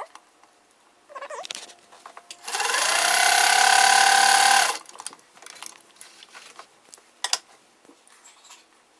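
Vintage Singer sewing machine's electric motor running for about two seconds, rising in pitch as it spins up, then holding steady before it stops sharply. A single sharp click comes later.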